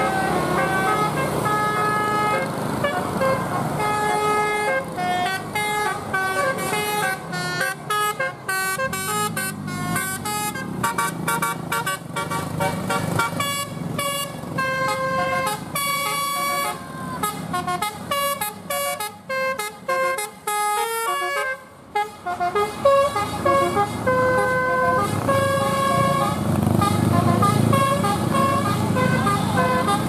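Bus telolet basuri horn playing a tune of stepped, held notes, broken in the middle by a fast stutter of short notes. A low engine rumble comes up near the end.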